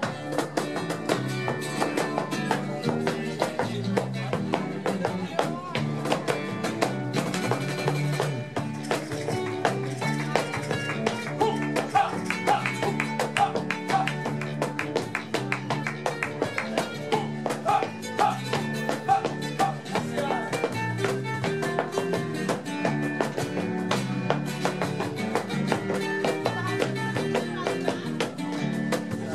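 Live flamenco band playing: acoustic guitar, electric bass and cajón, with rhythmic hand claps (palmas) and many sharp percussive strikes over a steady bass line.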